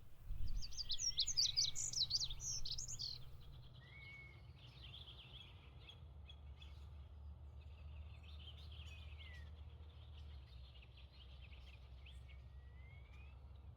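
Songbirds singing: a loud run of rapid chirping trills for the first three seconds or so, then fainter twittering song with a few slurred whistles, over a steady low background rumble.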